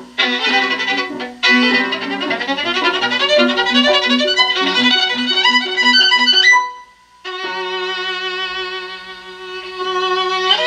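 Violin music played back from CD through a 6BM8 (6F3P) single-ended tube amplifier and bare Isophon oval loudspeakers. A quick run of notes goes over a repeated low note, then a brief pause about seven seconds in, then long held notes.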